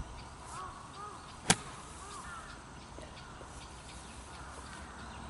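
A golf wedge shot: one crisp, sharp click of a 52-degree wedge striking the ball about one and a half seconds in, with faint bird chirps around it.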